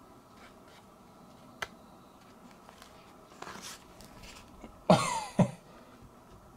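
Two quick coughs, about half a second apart, loud against a quiet room, preceded by a faint click and a soft rustle.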